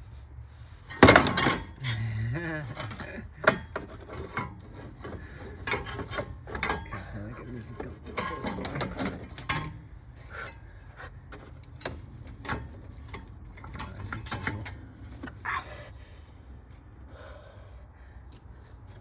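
Metal tools knocking, clicking and scraping against the clutch fan and water pump pulley as the fan is worked loose from the pump. A sharp knock about a second in, then irregular clicks and rubbing that die down near the end.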